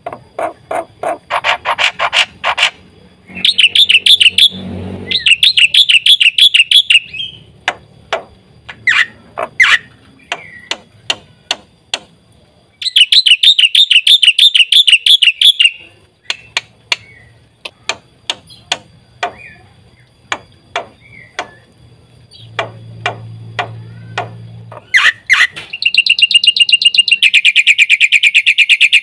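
Black-winged myna (jalak putih) singing loudly: a string of sharp single chips and clicks broken by several fast, rattling trilled phrases of two to three seconds each, the longest near the end.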